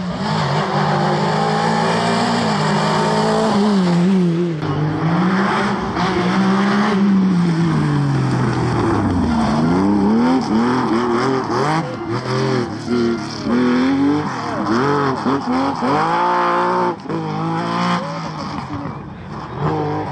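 Rally car engines driven hard, their pitch climbing under full throttle and dropping at gear changes and lifts, with quick throttle blips near the end. Among them is the air-cooled flat-six of a classic Porsche 911.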